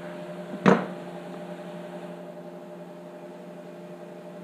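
Steady electrical hum with a single sharp click a little under a second in.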